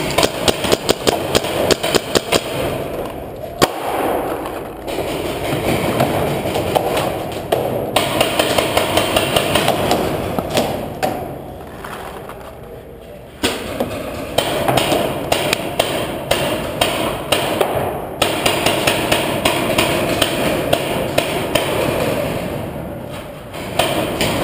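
Paintball markers firing in several rapid strings of sharp pops, with pauses between them, inside an underground rock cave.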